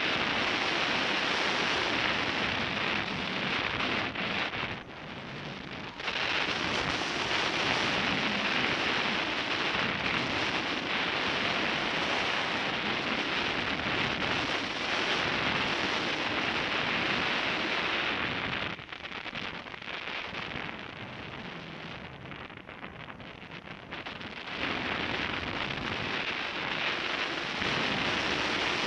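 Airflow rushing over the microphone of a camera on a hang glider in flight: a steady rushing noise that drops for about a second around five seconds in, and again for several seconds past the middle.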